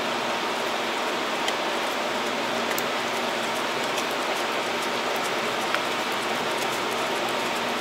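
Steady even hiss of background noise, with a few faint short clicks from a screwdriver driving screws into a freeskate's plastic deck.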